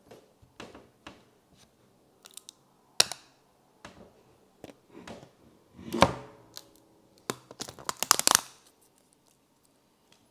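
Clear plastic tear strip being pulled off the wrapping of an AirPods Pro cardboard box: scattered crinkling and tearing crackles, with a sharp crack about three seconds in and another about six seconds in, then a dense run of crackling around eight seconds in.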